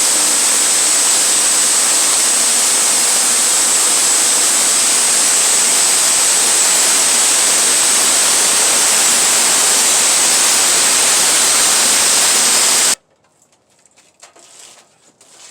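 Sawmill running and cutting through a pine log: a loud, steady rushing noise with a high hiss, which cuts off suddenly about 13 seconds in, leaving only a few faint clicks.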